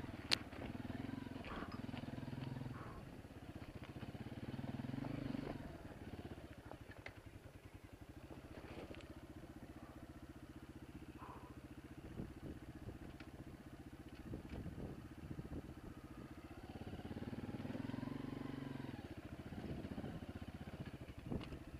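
Honda CRF230F's air-cooled single-cylinder four-stroke engine running at low speed, swelling with throttle near the start, around five seconds in and again about seventeen seconds in, with scattered knocks and clatter.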